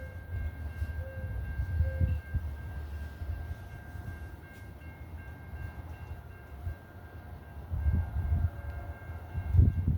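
NJ Transit commuter train running past, with a steady faint high-pitched ringing held through most of the stretch. Wind gusts hit the microphone, loudest near the end.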